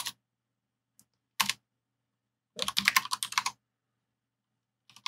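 Computer keyboard being typed on in short spurts: a keystroke or two at the start, a pair about a second and a half in, then a quick run of keystrokes around the three-second mark, with silence between.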